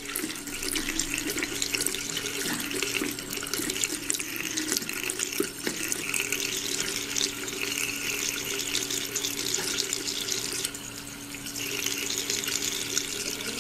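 Bathroom sink faucet running a thin stream into the basin: a steady splashing with a low hum under it, dipping briefly about eleven seconds in.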